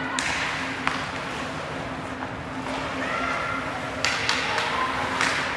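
Ice hockey rink sounds during play: background spectator voices with sharp knocks of sticks and puck, one about a second in and two louder ones about four and five seconds in.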